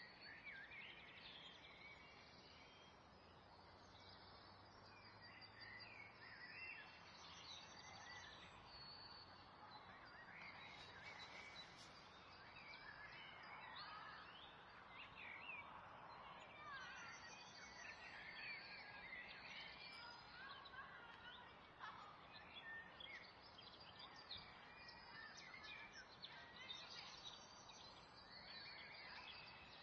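Near silence: a faint background hiss with scattered soft, short chirps and rustles.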